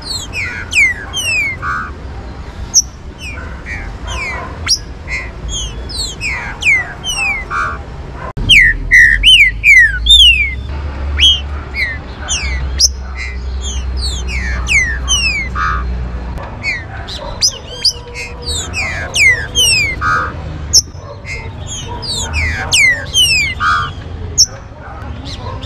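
Green-winged saltator (trinca-ferro) song: rapid, overlapping whistled notes, each falling steeply in pitch. A low rumble underneath grows louder from about a third of the way in until past the middle.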